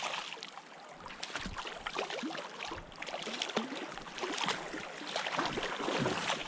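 A hooked arctic grayling splashing and thrashing at the surface of shallow water as it is reeled in to the shore: a run of irregular splashes and slaps.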